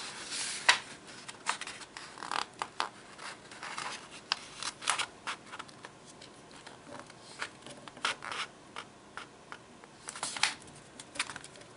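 A sheet of paper being folded by hand: irregular rustles and crackles as a corner is folded over and the crease is pressed flat with the fingers.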